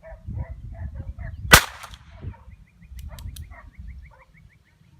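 A single shot from a Heritage Rough Rider .22 single-action revolver: one sharp crack about a second and a half in. A few faint clicks follow.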